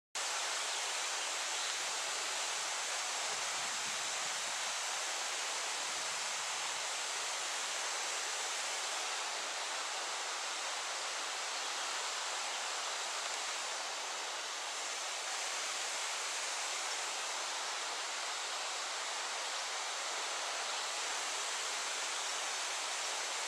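Steady, even outdoor rushing noise with no distinct events, cutting in abruptly at the start.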